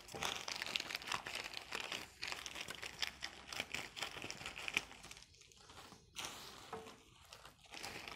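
Packaging crinkling and crackling as it is handled during an unboxing, busy for the first five seconds or so and then sparser, with scattered sharp clicks.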